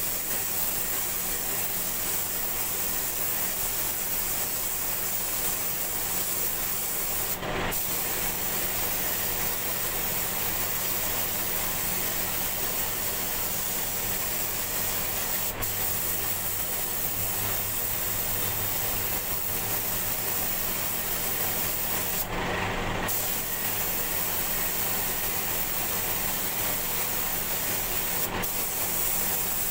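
Paint spray gun hissing steadily as it sprays a texture coat, over a steady low hum. The spray stops briefly about a quarter of the way in and for about a second past two-thirds of the way in.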